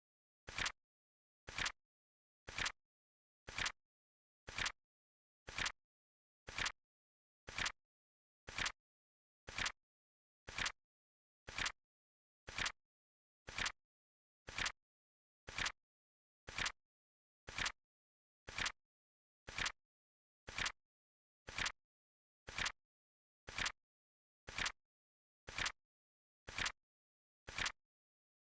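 Synthetic flip clock flip sound effect ticking once a second: a crisp, short click each time, with silence between.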